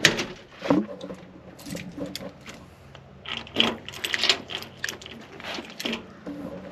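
Keys jangling and the metal clicks of a front door's lock and handle being worked, a run of irregular clinks.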